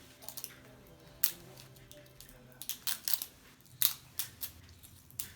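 Toy packaging being handled and opened: a scattered run of sharp clicks, snaps and crinkles, with a few louder snaps about one, three and four seconds in.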